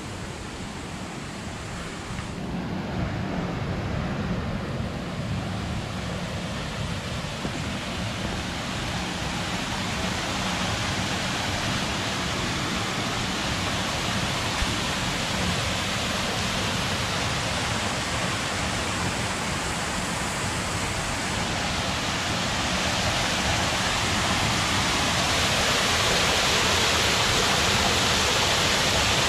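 Small waterfalls on a rocky mountain stream pouring into deep pools: a steady rush of falling water that grows gradually louder.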